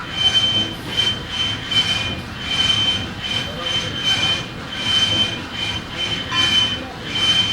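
A metalworking machine in an ironworks shop giving a high, metallic squeal that pulses on and off evenly, a little over once a second, over a steady mechanical din.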